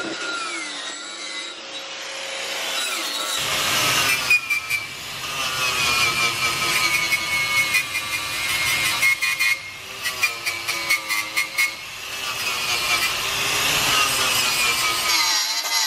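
Electric angle grinder grinding on the aluminium frame rail of an Audi R8, a high whine that sags and wavers in pitch as the disc is pressed into the metal. In the middle it turns choppy, the disc biting and lifting off several times.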